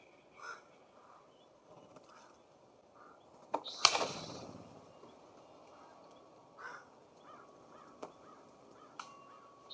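Birds at a feeder: a few short soft chirps, and one loud harsh burst a little under four seconds in that trails off over about a second, followed by a few sharp clicks.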